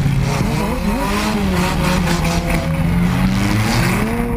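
Demolition-derby car engines running and revving, their pitch rising and falling unevenly over a low rumble.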